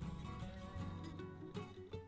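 Background music with a plucked guitar playing a run of notes.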